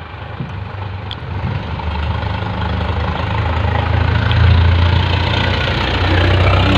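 A large engine running, a low drone that grows steadily louder and is loudest a little past the middle.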